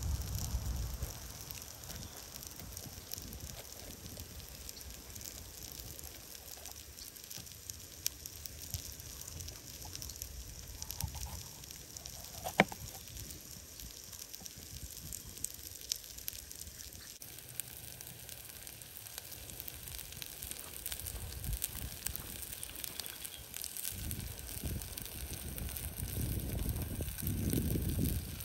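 Wood fire crackling with scattered small ticks, and one sharp pop about halfway through. A low rushing noise rises near the end.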